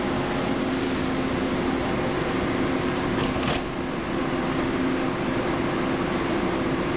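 Steady hum and hiss of a standing passenger train's air-conditioning and auxiliary equipment, echoing in an underground station, with two steady low hum tones. A short hiss comes about three seconds in.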